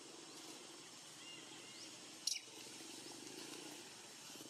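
Quiet forest ambience with a steady low hum and faint scattered high chirps. One short, sharp high-pitched chirp about two seconds in.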